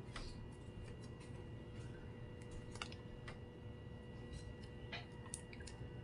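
Faint scattered clicks and crinkles of a small plastic sachet being handled in the fingers, a few sharp ticks irregularly spaced, over a faint steady hum.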